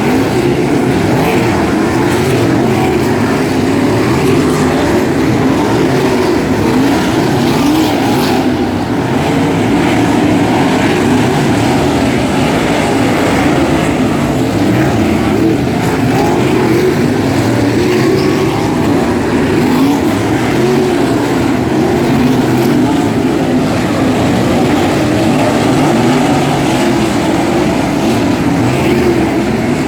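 A field of 360 sprint cars racing, their V8 engines running hard together. Several engine notes waver up and down over one another at a steady, loud level.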